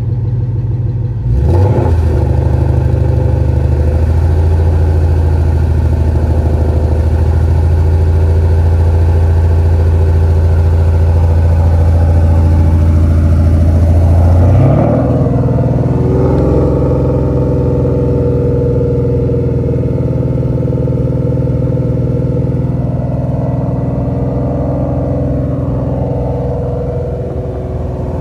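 2018 Ford Mustang GT's 5.0-litre V8 idling at the exhaust, a steady low rumble, with a brief rise in pitch about halfway through before it settles back into a steady idle.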